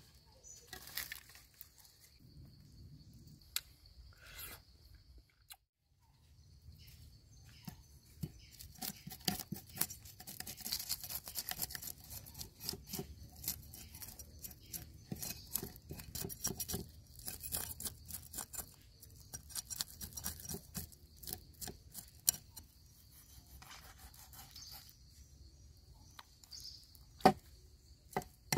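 Leafy greens rustling and tearing as they are crushed by hand. Then a cleaver scrapes scales off a small fish on a wooden cutting board in rapid strokes, and near the end the cleaver strikes the board in a few sharp chops.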